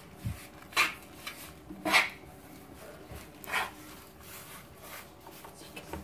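Fingers rubbing ghee across a round chapati rolling board to grease it, with a few short swishes of skin sliding over the board's surface, three of them clearly stronger than the rest.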